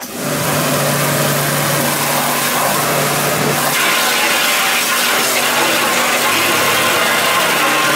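Ruris Pro Power Jet 1900 electric pressure washer switching on and running: induction-motor pump hum under the steady hiss of a concentrated high-pressure water jet. The sound starts abruptly, and the motor hum shifts a little under four seconds in.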